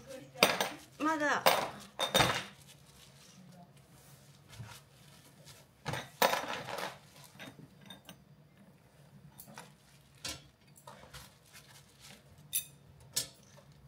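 Dishes and metal utensils clinking and clattering off and on, with a short burst of voice about a second in.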